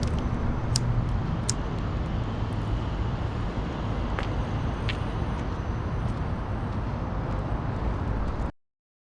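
Steady low rumble of street traffic, with a few sharp clicks heard over it; it cuts off abruptly near the end.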